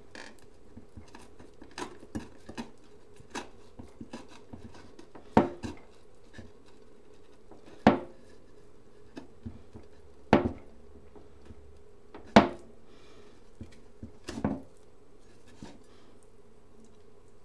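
Kitchen knife knocking against a wooden cutting board while scoring and trimming raw chicken tenderloins: five louder knocks about every two and a half seconds, with lighter clicks between.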